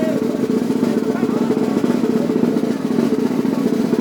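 Brass band drums playing a fast, continuous roll, with the snare drum to the fore.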